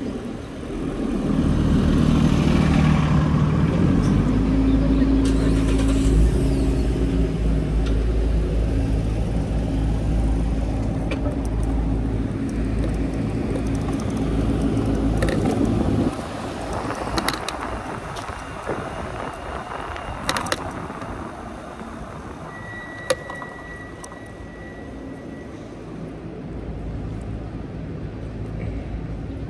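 A motor vehicle's engine running close by, a low steady hum that swells in about a second in and cuts off suddenly about halfway through. After it, quieter even road and wind noise with a few sharp clicks.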